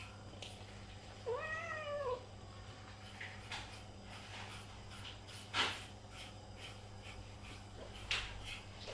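A domestic cat gives one short meow that rises then falls, about a second and a half in, followed by a few brief scratchy strokes.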